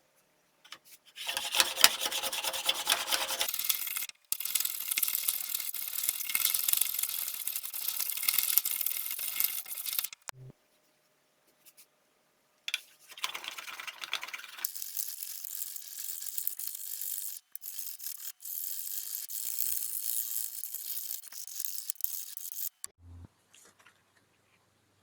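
A tool abrading wood: a dense scraping hiss that runs for about nine seconds, stops for a couple of seconds, then runs again for about ten seconds.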